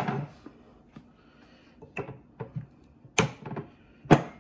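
Glass bottles being handled on a kitchen counter: a few separate sharp knocks and clinks, the two loudest about three and four seconds in.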